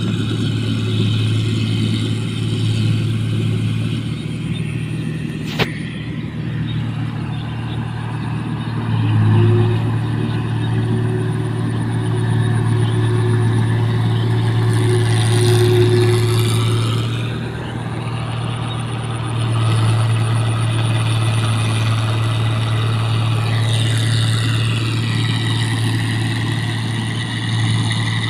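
Rice harvesting machine's engine running with a steady drone. A whine rises and falls twice, and there is one sharp click early on.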